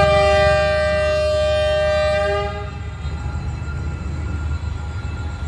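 Locomotive horn sounding one long, steady blast of about two and a half seconds, over the low rumble of the train running. A second blast starts right at the end.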